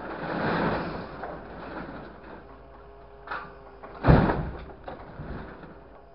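Scrap sheet metal scraping and clattering as a grapple truck's hydraulic grapple handles the load in its bed. A faint steady hum runs underneath, and a loud metallic crash comes about four seconds in.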